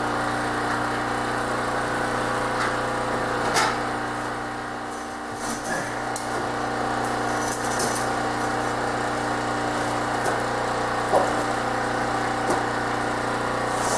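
Scattered clicks and light metallic taps from hand tools working on an aluminium ultralight airframe, over a steady machine hum.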